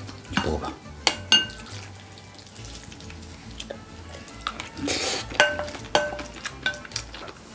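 Wooden spoons clinking and scraping against glass bowls as rice mixed with cheonggukjang is stirred and scooped. Several of the taps leave a short, high glassy ring, and there is a longer scraping rustle about five seconds in.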